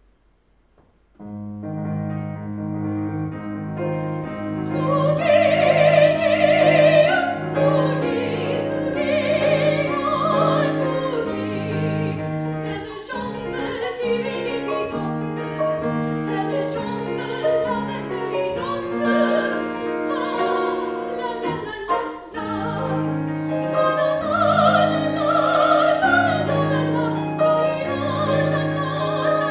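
Classical voice recital music: piano accompaniment starts suddenly about a second in with steady repeated chords, and a trained singer's voice with vibrato comes in about five seconds in and carries the melody over it.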